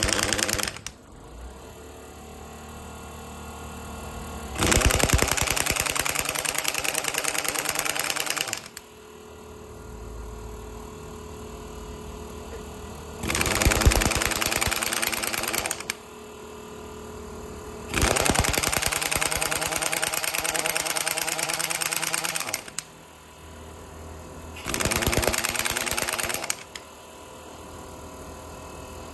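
Large SI-3850GL pneumatic impact wrench (1-inch square drive, 1470 Nm) triggered in repeated bursts of rapid hammering, each lasting about two to five seconds. Between the bursts there are pauses where it falls quiet. The run is a simple operation check of the tool.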